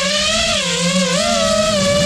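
FPV quadcopter's electric motors and propellers whining, the pitch wavering up and down with the throttle over a steady lower hum.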